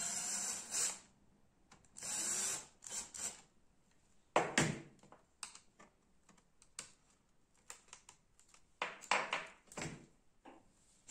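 Two short bursts of harsh scraping noise, then scattered sharp clicks and knocks, from work on a laptop's plastic top case around the keyboard.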